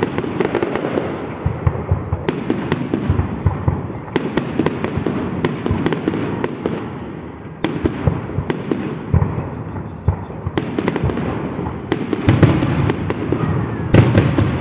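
Aerial fireworks display: a steady run of shell bursts and crackling stars, with a loud bang near the end.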